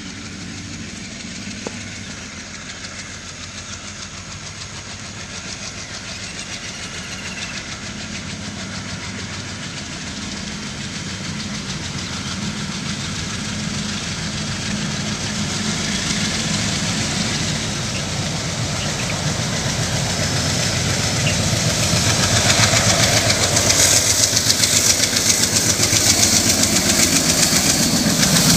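WDM 3A diesel-electric locomotive's ALCO 16-cylinder engine chugging as it accelerates, growing steadily louder as the locomotive approaches.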